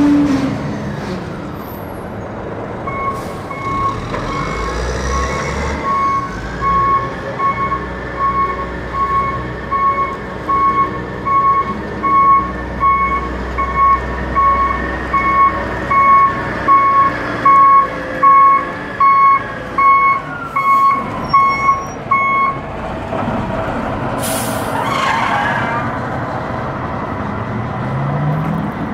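Caterpillar 621F wheel tractor-scraper's diesel engine running as the machine reverses, its backup alarm beeping about once a second for some twenty seconds. After the beeping stops comes a short, sharp hiss of air, and the engine revs up near the end.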